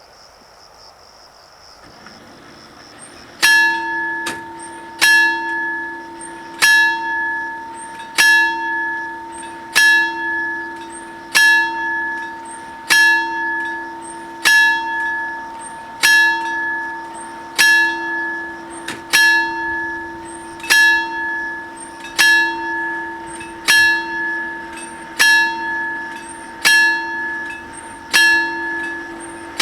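Electromechanical level-crossing warning bell at an Italian FS 64 type crossing, starting about three seconds in and striking about once every second and a half with a fainter stroke in between, each strike ringing on. It is the warning that the crossing is closing for an approaching train.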